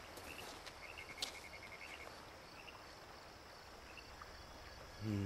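Faint night-time woodland ambience: crickets chirping sparsely over a soft steady hiss, with a quick trilled run of chirps about a second in and a single sharp click just after it.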